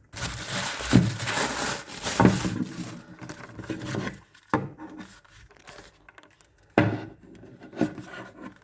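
Cordless phone packaging being handled as the handset is taken out of its box: crinkling plastic and rubbing cardboard, busiest for the first four seconds, with about five dull knocks.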